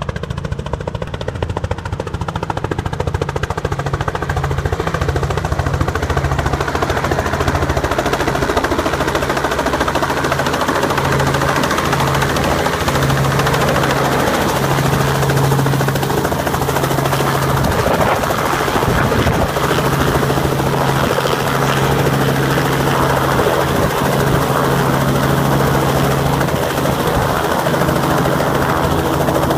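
Robinson R44 helicopter's rotor and piston engine running as it comes in, hovers low and settles onto the helipad. The noise is steady, grows louder over the first few seconds and then holds.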